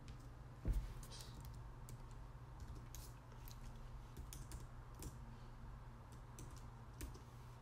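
Typing on a computer keyboard: scattered, irregular key clicks, with one louder knock a little under a second in, over a faint low steady hum.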